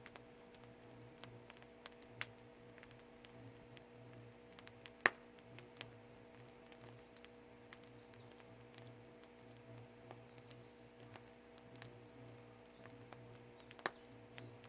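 Firewood burning in a traditional Korean agungi firebox, crackling with scattered faint pops, a single louder crack about five seconds in and a few quick pops near the end. A steady low hum runs underneath.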